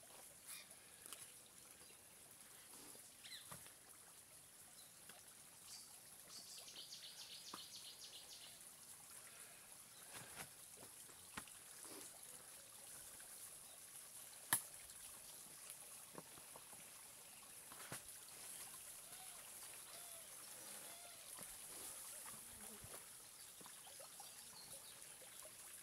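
Near silence with faint trickling water, broken by scattered small clicks and one sharp click about halfway through. A brief, rapid high chirping comes in about six seconds in.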